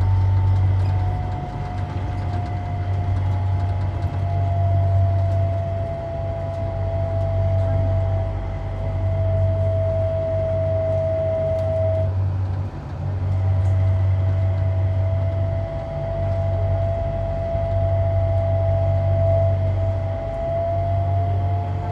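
Inside a rubber-tyred Sengkang LRT car (Mitsubishi Crystal Mover) in motion: a steady motor whine that sags slightly in pitch, drops out about halfway through and comes back a second later, over a low rumble of the running gear that swells and fades.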